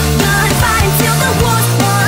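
Nightcore edit of a pop-rock song: sped-up, pitched-up high vocal singing over a full rock band backing with drums.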